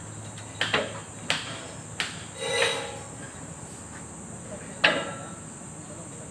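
Metal knocks at irregular intervals, like a hammer striking steel tube: about six blows, two of them closely doubled near the start, and a couple ringing briefly.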